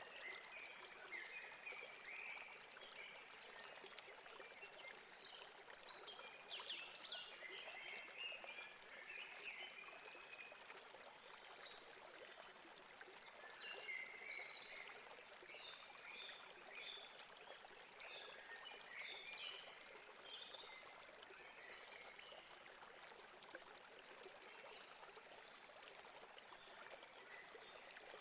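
Stream running steadily over rocks, with several birds chirping and calling over it, the chirps thickest in the first third and again around the middle.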